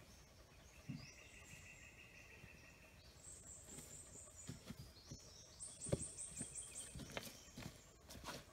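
Footsteps on the forest floor and knocks from a log being carried closer, growing from about halfway through, the loudest a thump about six seconds in. Faint, high, evenly pulsed trills of forest insects run underneath at a few fixed pitches.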